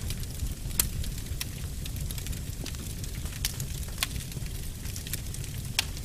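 Wood fire in a fireplace burning with a steady low rumble and scattered sharp crackles and pops, several of them loud.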